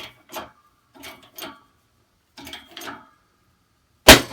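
Hydraulic shop press being pumped in short strokes, then about four seconds in a single loud, sharp bang as the seized steering shaft suddenly breaks loose in the steering wheel hub under the press, leaving the steel ringing.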